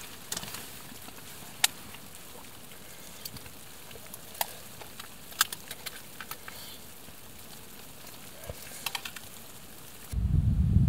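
Spoon clicking and scraping against a small camping pot while eating, over a faint steady hiss. Near the end a loud low rumble starts suddenly.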